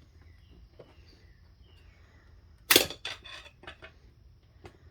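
A single sharp metal snap about three seconds in from a large screwdriver prying at a big snap ring inside a 4L65E transmission case, followed by a few lighter metallic clicks.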